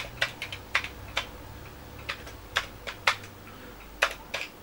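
Keys being typed on a Commodore 128 keyboard, about a dozen separate clacks at an uneven pace as a LOAD command is entered.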